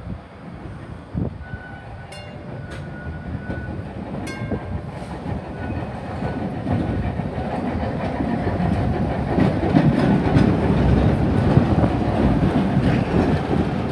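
Vintage P Class electric tram 1497 approaching and passing close by on its track, its rumble on the rails growing louder as it nears. A few brief high squeals and clicks come in the first few seconds.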